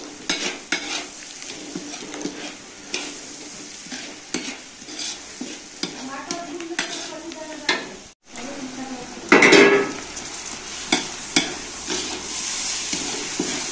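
Metal spatula stirring and scraping onions, green chillies and spices frying in hot oil in a large aluminium kadhai, over a steady sizzle, with a louder clatter about nine seconds in.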